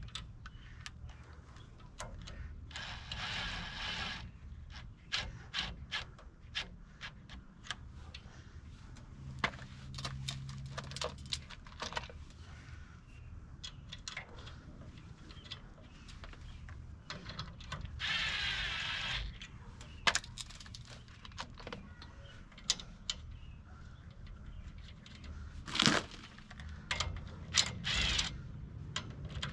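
Hand-tool work on a truck's wheel hub and brake drum: scattered metal clinks, taps and knocks, with two short rasping bursts of about a second each and a louder knock near the end.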